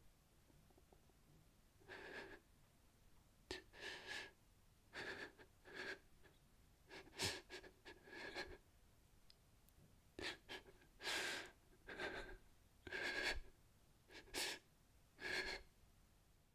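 A man crying, sobbing in short breathy sobs about one a second, the later sobs louder and coming closer together.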